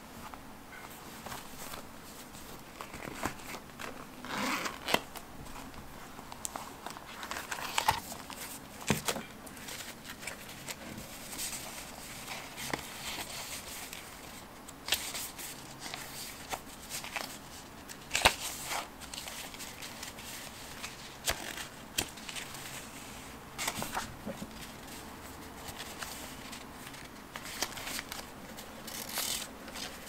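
Small printed paper cards handled close to the microphone: rustling, flicking and shuffling, with irregular light clicks and taps.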